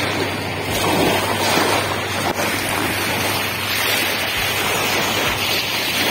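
Small river waves lapping and breaking on a sand-and-pebble shore, with wind buffeting the microphone.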